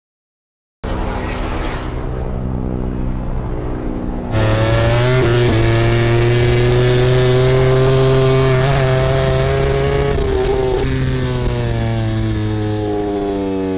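MotoGP racing motorcycles' four-cylinder four-stroke engines at high revs. The sound starts about a second in, jumps louder about four seconds in, and the engine note falls steadily over the last few seconds.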